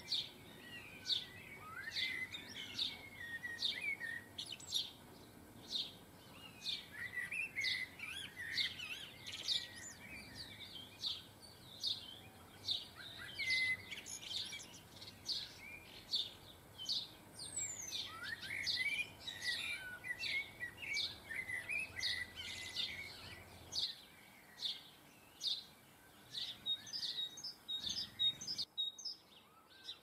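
Small garden songbirds calling: a run of short, sharp, high chirps about every half second, with twittering phrases mixed in. The sound cuts off abruptly near the end.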